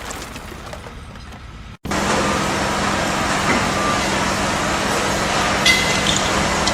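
Heavy engine running steadily with a constant low hum, starting after an abrupt cut about two seconds in; a quieter noisy stretch comes before it.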